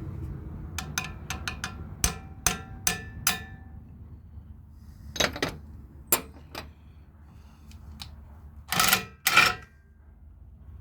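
Metal clinking and knocking as a brass valve is worked apart with a metal tool. A quick run of light clicks comes first, then several sharper knocks that ring briefly, and two louder, longer clatters near the end.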